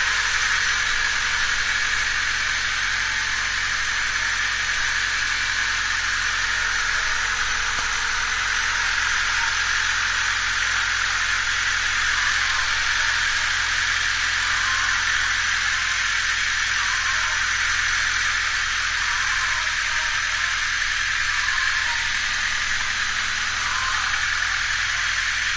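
1998 Honda Civic DX's four-cylinder engine idling steadily while warming up, with a constant hiss over a low hum.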